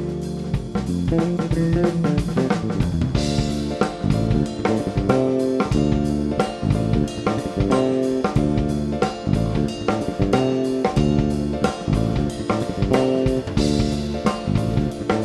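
Acoustic drum kit and electric bass playing an instrumental piece together: a steady beat of snare, kick and cymbal hits over a moving bass line.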